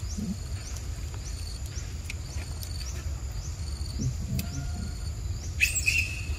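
Forest insects singing: a steady high thin drone with a high chirp repeating about one and a half times a second, over a low steady rumble. A short, sharp, high squeak cuts in near the end.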